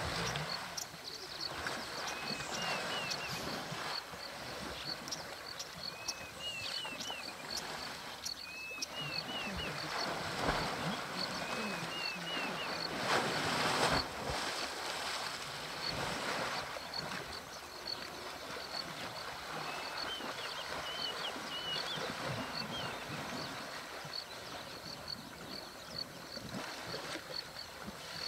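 Water splashing and sloshing as African elephant bulls swim, roll and wrestle in a waterhole, with a louder splash about halfway through. Short high chirping notes come in small groups over it.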